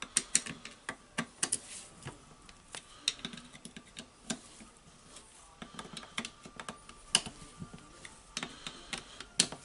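Irregular light clicks and ticks of a hand screwdriver checking the housing screws on a rotary hammer drill, with the metal tool body shifting on the bench.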